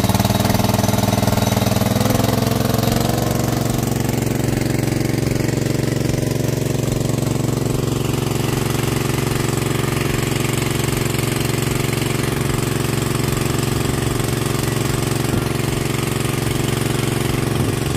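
Small petrol engine of a portable irrigation water pump running steadily; its note settles over the first few seconds, then holds even. The repaired pump is running normally.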